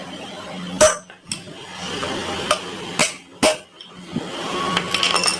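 Hammer blows on a steel rod driving the second wheel bearing out of a Hero Glamour motorcycle's wheel hub: a few sharp metallic knocks at uneven intervals, the loudest about a second in and two close together around three seconds in.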